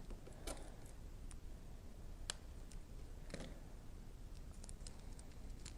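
Faint, scattered light clicks and taps from small plastic parts being handled: a camera and its mount being worked loose.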